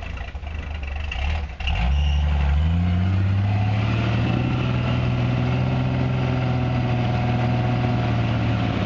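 Lifted off-road Jeep's engine running low, then revving up about two seconds in and held at high revs under load as it climbs a steep rocky slope, dropping off right at the end.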